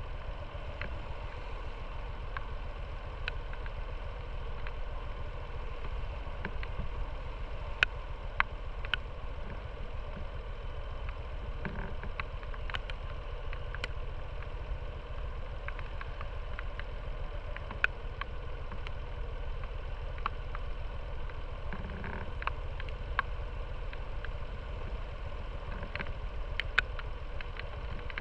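Motorcycle engine idling steadily while stopped, with scattered sharp ticks over the steady hum.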